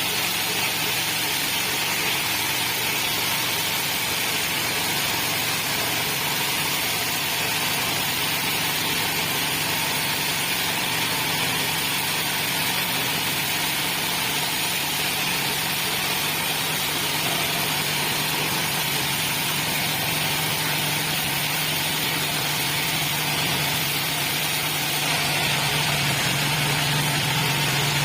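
Horizontal bandsaw sawmill's 9 hp engine running steadily during a test run, growing slightly louder over the last few seconds.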